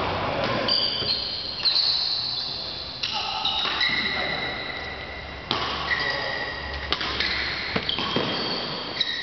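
Badminton play: sharp racket strikes on the shuttlecock, several times, amid high squeaks of court shoes on the hall floor, echoing in a large sports hall.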